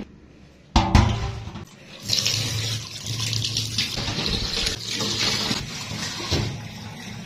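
A knock about a second in, then a kitchen tap running into a steel bowl of rice in a stainless-steel sink while a hand swishes the grains, rinsing the rice before it is soaked. The running water eases off near the end.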